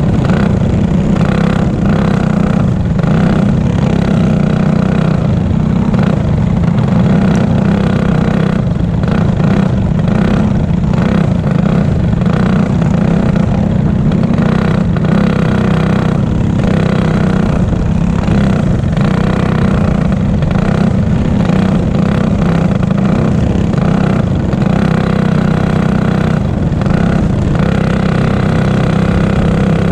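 Single-cylinder four-stroke Clone racing-kart engine running hard at fairly steady high revs, heard onboard the kart, with gusty wind noise on the microphone.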